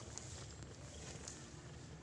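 A Persian cat in labour purring faintly, a low steady rumble, with a few soft clicks.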